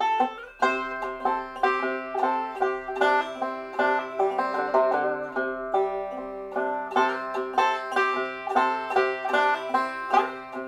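Background bluegrass music led by a fast-picked banjo.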